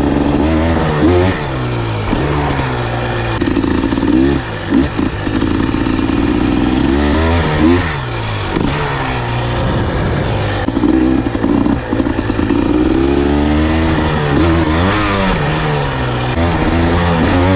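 Dirt bike engine being ridden, revving up and easing off over and over, its pitch rising and falling with the throttle.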